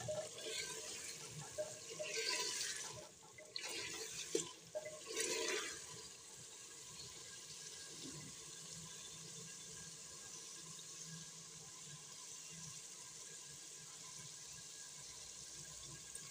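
Chicken and masala frying in a clay handi, a faint steady sizzle, with a few short scrapes of a wooden spoon stirring in the first six seconds or so.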